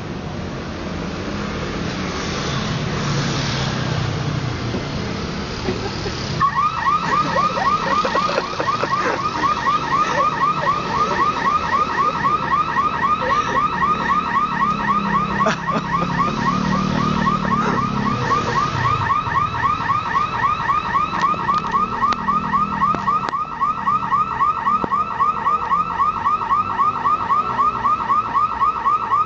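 Car anti-theft alarm going off about six seconds in, set off when the car is slapped: a loud, fast run of rising chirps repeated several times a second. Before it there is a low steady rumble.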